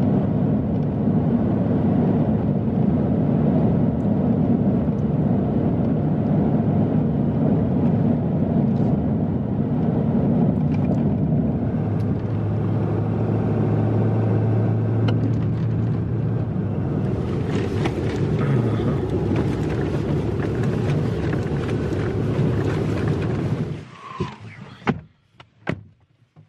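Road noise inside a moving vehicle's cab: a steady engine and tyre drone on an unpaved road. From about 17 seconds in a wider hiss joins it. The drone falls away abruptly near the end, leaving a few short knocks.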